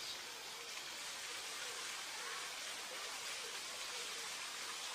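A steady, even hiss of background noise with no distinct event standing out.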